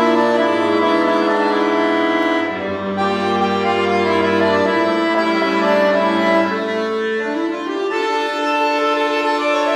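Piano accordion playing a tango solo: sustained chords over low bass notes, the bass dropping out about halfway through while the held chords change every second or two.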